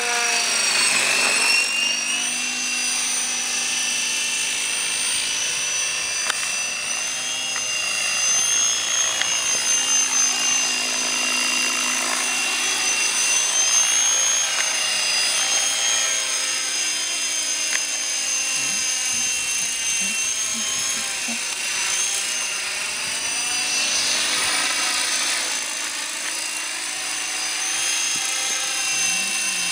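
Thunder Tiger E-Raptor E550 electric RC helicopter in flight: a high whine of several tones from the motor and rotor head, sweeping up and down in pitch and swelling louder as it manoeuvres and passes.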